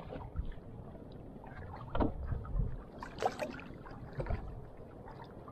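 Small fishing boat on the water, with a low steady noise of water and wind and a couple of short knocks against the boat about two and three seconds in.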